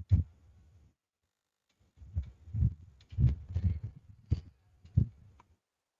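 Computer keyboard keys being pressed, heard as a single soft thump and then, about two seconds in, an irregular run of low thuds with a few sharp clicks.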